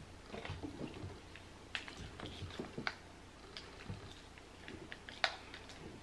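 Faint handling sounds of hair and a curling iron: soft rustling of hair between fingers and scattered small clicks, with one sharper click about five seconds in.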